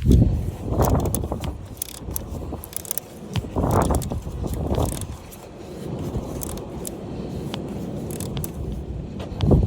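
Hand tools clinking and scraping against metal while the bolt of a camshaft position sensor is tightened, with irregular light clicks and several dull bumps of handling.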